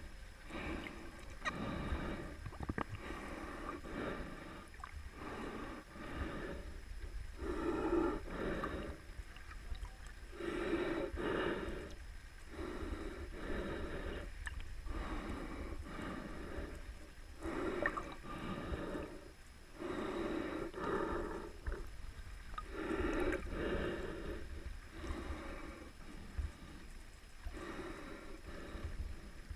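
A swimmer's slow, heavy breathing heard underwater, with one rushing breath every two seconds or so, over a steady low rumble of water.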